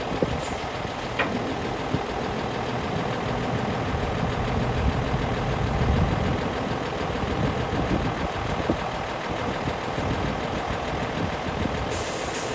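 Scania tow truck's diesel engine idling steadily.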